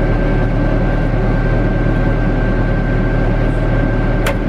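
Timberjack 1010B forwarder running steadily, heard inside its cab with the air conditioner going: a constant low drone with a thin steady whine over it. One sharp click about four seconds in.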